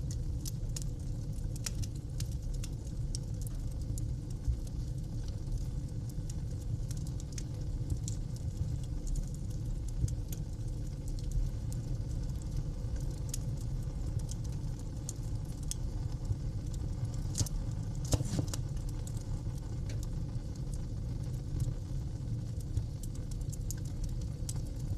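Wood fire burning in a fireplace: a steady low rumble of flames with irregular sharp crackles and pops, a few louder pops here and there.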